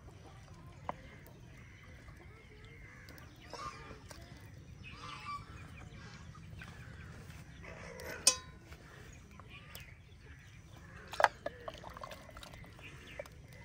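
Metal utensil clanking against a cooking pot as boiled beef is lifted out of it, with a sharp ringing clang about eight seconds in and another about eleven seconds in.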